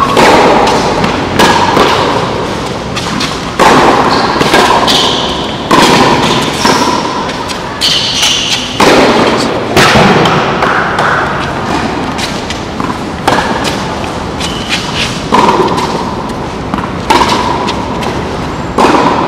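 Tennis ball being struck by rackets and bouncing on a hard court, a sharp thump every second or two with echo after each, with a lull of a few seconds about halfway through.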